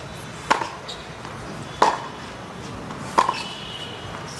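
Tennis ball struck by rackets during a baseline rally: three sharp hits about 1.3 seconds apart.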